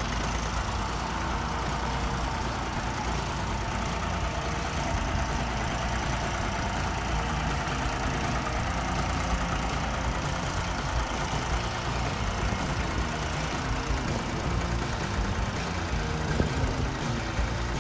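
Fordson Dexta tractor engine running steadily.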